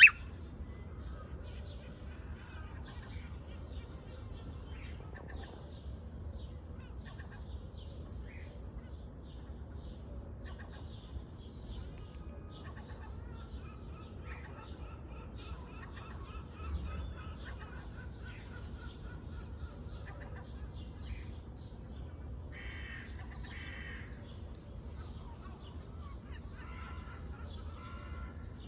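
Pet parrot chattering and calling: a steady stream of short chirps and squawks, a long held whistled note about halfway through, and louder bursts of calls near the end. A sharp click at the very start and a steady low hum underneath.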